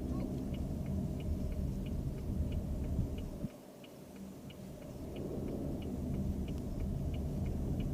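Car interior with the low rumble of the road and engine, and the turn-signal indicator clicking steadily at about three clicks a second. The rumble drops away briefly about halfway through.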